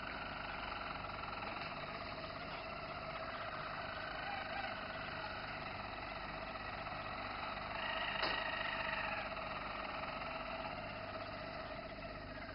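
Roller canary singing a continuous rolling song whose pitch shifts from one tour to the next, with a sharp click about eight seconds in.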